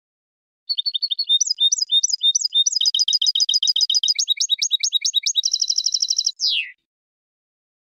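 A European goldfinch singing one song of about six seconds: runs of rapid, high repeated notes that change phrase several times and end in a short falling note.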